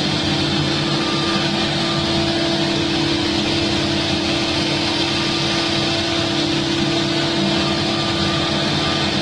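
CNC wood router's spindle running steadily, a constant hum with an even hiss, as it carves wood.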